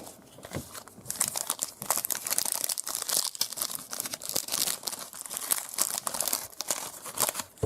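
Foil trading-card pack wrapper crinkling and tearing as it is handled and opened: a dense run of small crackles and rustles that starts about a second in and stops just before the end.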